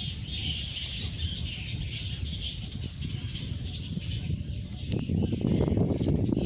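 Birds chirping in the trees, a dense high twittering, over a low rumble of wind on the microphone that grows louder about five seconds in.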